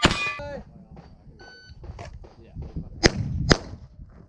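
Handgun shots: one at the start, then two in quick succession about three seconds in, with a brief ringing tone in between.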